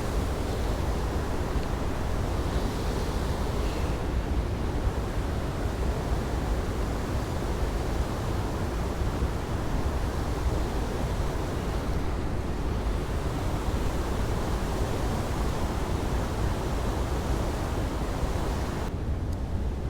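Steady rushing of flowing river water, with a low rumble of wind on the microphone.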